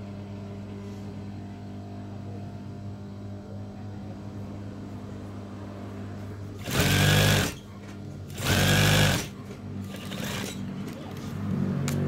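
Industrial sewing machine's motor humming steadily, then two short bursts of fast stitching about a second and a half apart, sewing elastic into gathered curtain fabric.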